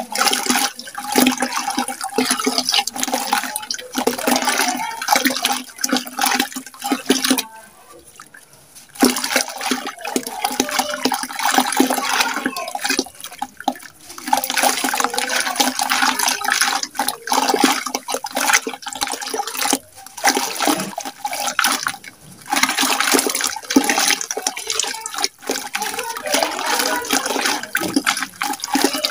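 Damp sand-cement chunks crumbled by hand, the grains pouring and crackling into muddy water in a bucket. The crumbling goes in long runs, stopping clearly for about a second and a half some 8 s in and briefly twice more.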